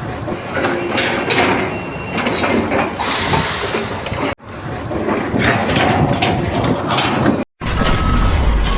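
Mechanical clicking and rattling, dense and irregular, cut off twice by brief gaps of silence.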